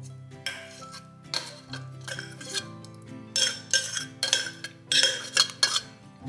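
A metal spoon scraping and knocking against a pan while thick blueberry compote is scooped out and dolloped onto a sponge cake. It gives a run of about ten sharp clinks and scrapes, loudest and closest together in the second half.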